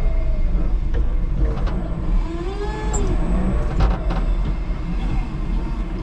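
Electric forklift truck driving and turning on a concrete floor: a steady low rumble with a few knocks and rattles, and a motor whine that rises and falls in pitch about two to three seconds in.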